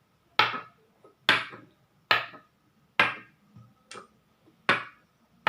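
Makruk pieces being set down on the board one move after another: six sharp clicks about a second apart.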